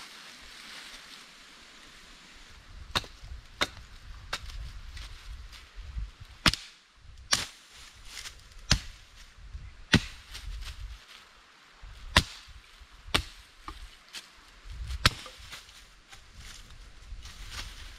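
Sharp chopping strikes of a small hand tool's metal head cutting into the leaf-covered forest floor, about ten blows a second or so apart, with a soft rustle of dry leaves before the first blow.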